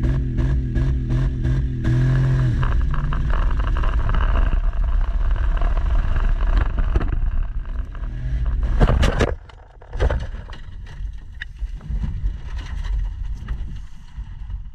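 Dodge Durango engine running hard at wide-open throttle, heard from inside the cabin, as the driverless SUV bounces over rough ground. About nine seconds in there is a loud crash as it hits the jump, a moment of near quiet while airborne, then a second heavy crash on landing, the impact that sets off the airbags, and the engine and loose parts keep rattling.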